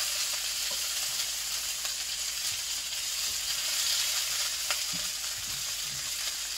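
Bell pepper strips sizzling in hot oil in a cast iron pan, a steady frying hiss, with a few light clicks as tongs turn them.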